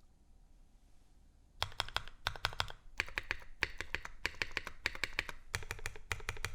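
Typing on a custom mechanical keyboard: an aluminium Xiyeon case with a full aluminium plate, Alpaca linear switches lubed with Krytox 205g0 and fitted with TX films, and GMK keycaps. After about a second and a half of quiet, fast typing begins and comes in short rapid runs of keystrokes.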